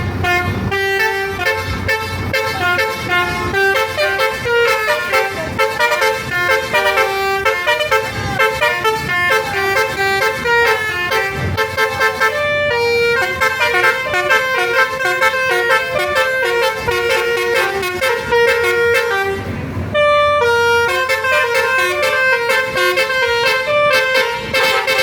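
Bus 'basuri' telolet horn, a multi-trumpet musical horn, playing a quick tune note after note, with a brief break about twenty seconds in. A low bus engine rumble sits under the horn.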